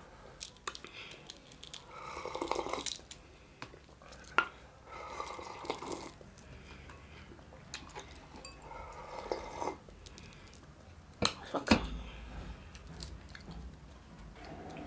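Fish broth slurped from a glass bowl, several slurps a few seconds apart, with chewing of fried fish and the odd sharp clink or knock of dishes, a cluster of them about eleven seconds in.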